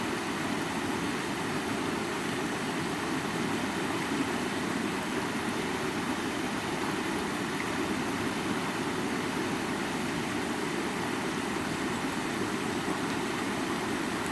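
High waterfall pouring: an even, unbroken rush of water that does not change, heaviest in its low-middle range.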